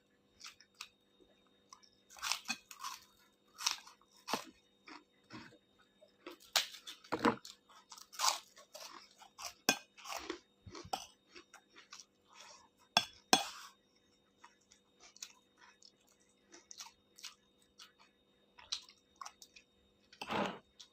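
Close-up wet chewing and smacking of fried noodles mixed with rice, irregular mouth clicks and crunches, some louder than others.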